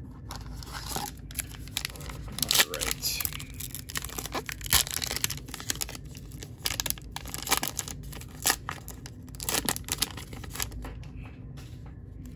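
The wrapper of a Topps Heritage baseball card pack being torn open by hand and crinkled. It gives irregular sharp crackles and rips, with a few louder snaps along the way.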